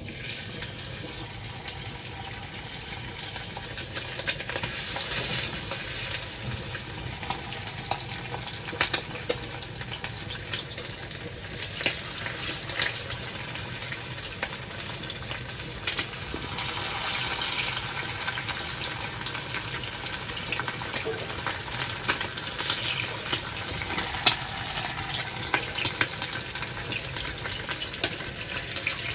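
Marinated chicken wings frying in shallow hot oil in a small nonstick pan: a steady sizzle broken by frequent sharp pops and crackles.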